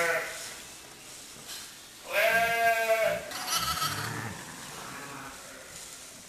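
Sheep bleating: one long, loud, quavering bleat about two seconds in, followed at once by a second, shorter bleat.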